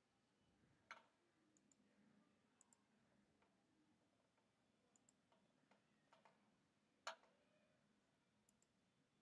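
Near silence with a few faint, scattered clicks of a computer mouse and keyboard, the two loudest about a second in and about seven seconds in.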